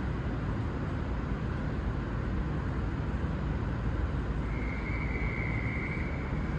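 Steady low rumble of diesel railcars idling at a station platform. About two-thirds of the way through, a single high steady tone sounds for under two seconds.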